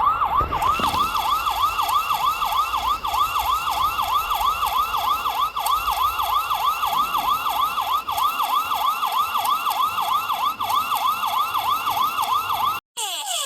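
Electronic siren-style alarm: a tone warbling up and down rapidly, about three times a second, steady and loud. Near the end it cuts off, and a different alarm of quickly repeating falling tones starts.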